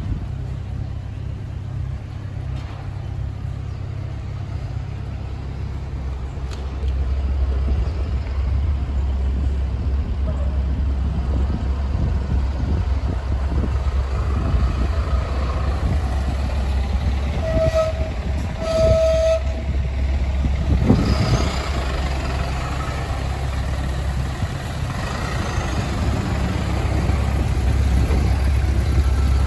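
Yamaha FJR1300P police motorcycle's inline-four engine idling steadily, growing louder about seven seconds in. Past the middle, two short horn-like beeps about a second apart cut through the idle.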